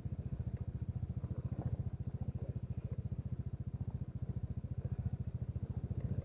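Motorcycle engine running steadily while riding, a low even throb.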